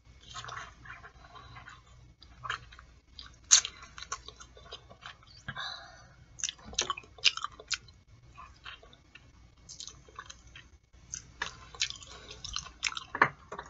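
Mouth sounds of eating boiled artichoke leaves: chewing, with irregular wet smacks and sharp clicks as the soft flesh is pulled off the leaves with the teeth.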